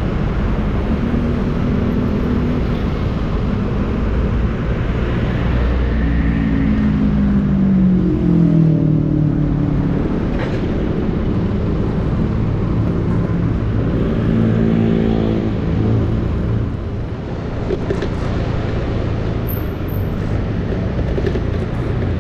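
City street traffic heard from a motorcycle: engines of motorcycles and cars running, over a steady low rumble of road and wind noise. Engine tones slide down in pitch about six to ten seconds in, and again around fifteen seconds.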